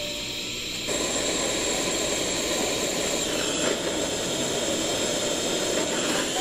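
Gas torch flame blowing with a steady, loud hiss from about a second in, heating a small metal collar held on a rod.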